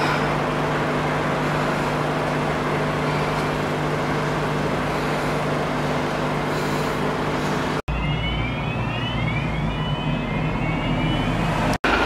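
Parked fire engine idling with a steady hum. About eight seconds in, the sound cuts briefly; after that a louder low rumble carries on, with faint repeated rising tones above it.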